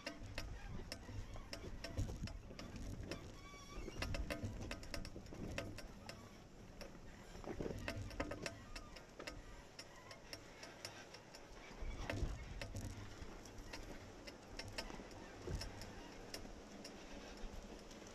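A 4x4 vehicle crawling slowly over a rocky off-road trail. The engine runs low throughout, under frequent sharp clicks and knocks from rocks and gravel under the tyres and rattling in the vehicle.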